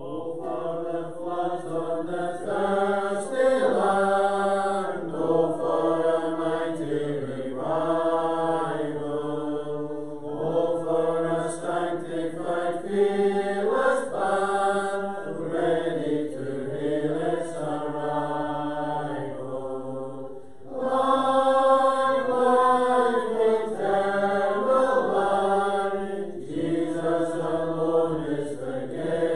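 Congregation singing a hymn in slow, held notes, with a brief pause between lines about two-thirds of the way through.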